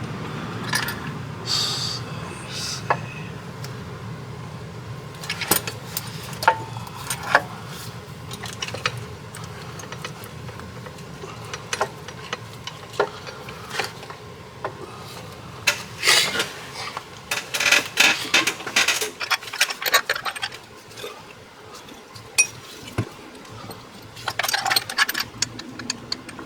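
Scattered metallic clinks, clicks and knocks of bolts and hand tools while a new water pump is set against an aluminium engine front and its bolts are started. The clicks bunch into quick runs twice in the second half.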